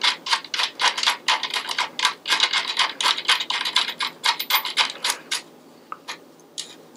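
Axle nut being spun by hand onto the threaded axle of an e-bike rear hub motor: a rapid run of small metallic ticks and scrapes, about five a second. It stops about five seconds in, leaving a few scattered clicks.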